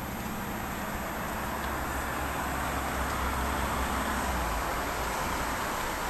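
Road traffic noise from a passing vehicle: a steady rush with a low engine rumble that swells to a peak about four seconds in and then eases off.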